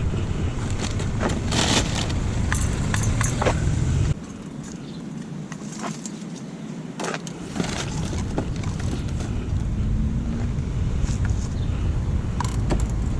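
Wind buffeting the microphone, cutting out abruptly for about three seconds midway, with scattered clicks and light rattles.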